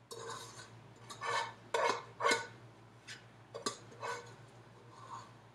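A serving utensil scraping and knocking against a saucepan as the last of the cooked quinoa is scooped out, in a series of irregular scrapes and clinks.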